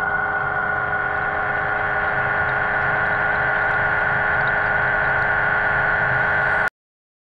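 Diver propulsion vehicle's electric motor running underwater on its stock Piranha speed controller: a steady high whine over a low hum, cutting off suddenly near the end.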